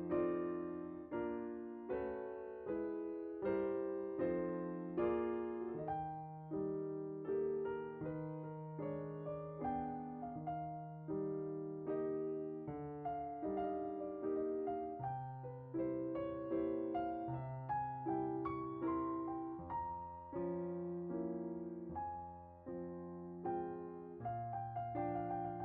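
Background piano music: a gentle, steady run of chords and notes on an electric piano.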